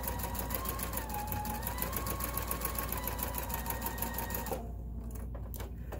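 Bernina Artista 180 sewing machine running steadily while stitching a rolled hem: a motor whine over the rapid patter of the needle, dipping and rising slightly in pitch as the speed changes. It stops about four and a half seconds in.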